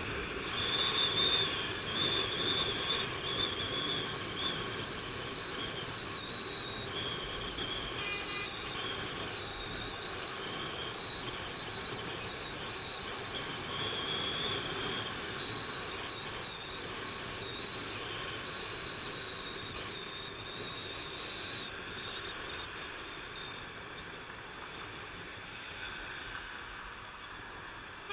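Street traffic and road noise heard from a moving bicycle, with a steady, slightly wavering high-pitched whine throughout. The noise is loudest in the first few seconds, and a brief short sound comes about eight seconds in.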